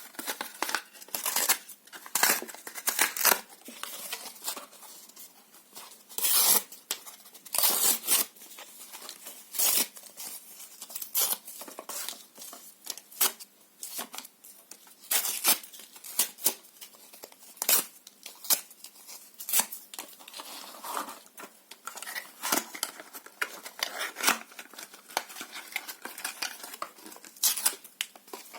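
Paper being torn by hand: a run of irregular rips, some short and snappy, some drawn out, with crinkling in between.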